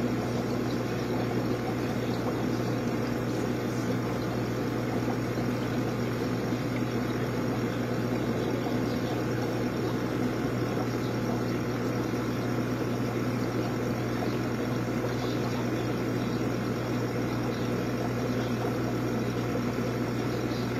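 Aquarium pumps and filters running, a steady hum with a low drone and a hiss of moving water over it.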